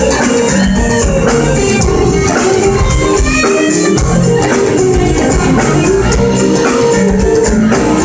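Live blues band playing an instrumental passage with electric guitars, bass, keyboard and drums, at a steady beat.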